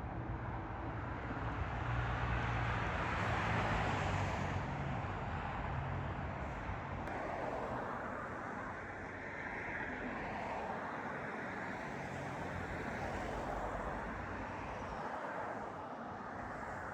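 Passenger train running, heard from inside the carriage: a steady rumble and rushing noise that swells and eases, with a low hum in the first few seconds.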